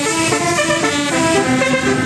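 Indonesian 'telolet' musical bus horn playing a quick melody, a string of horn notes stepping up and down in pitch every fraction of a second.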